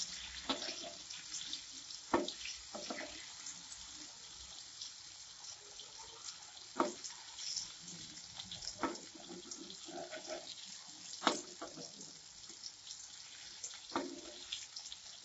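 Elephant foot yam and shrimp koftas deep-frying in hot oil in an iron kadai: a steady sizzle with scattered pops and crackles. Near the end a metal spatula turns them, with a sharp tap.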